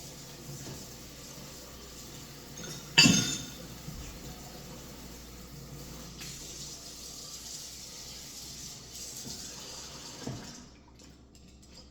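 Water running steadily from a kitchen tap, with a sharp knock about three seconds in and a smaller one just before the water stops near the end.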